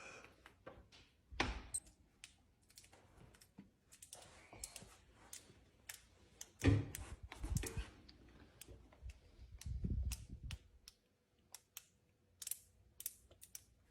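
Faint, irregular key taps and clicks of someone typing in passwords, with a few heavier low thumps among them.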